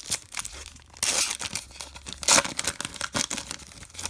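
A trading-card pack wrapper being torn open and crinkled by hand, with two louder tearing rips, about one second in and again near the middle, among lighter crackling.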